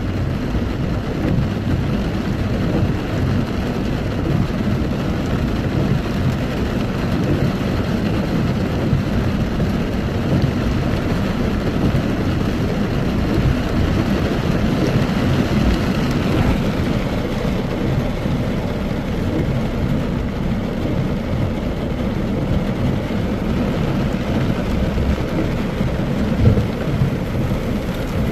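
Heavy rain falling, a steady dense noise with a strong low rumble running under it.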